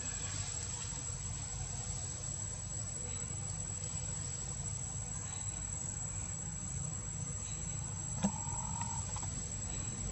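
Outdoor ambience: a steady low rumble with a faint, steady high insect hum over it. About eight seconds in there is a single sharp click, followed by a short, high, even-pitched squeak lasting under a second.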